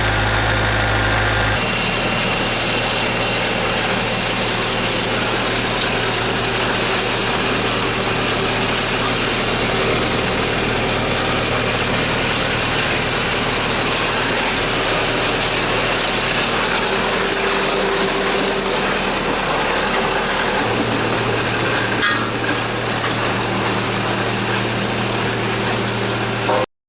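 Farm machinery engine running steadily. Its note shifts about a second and a half in and again about twenty seconds in, there is a brief click a little later, and the sound cuts off suddenly near the end.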